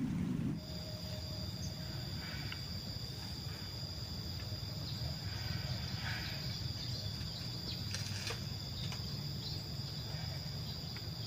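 Insect chorus, crickets trilling steadily at a high pitch, over a low wind rumble on the microphone that is louder for the first half second.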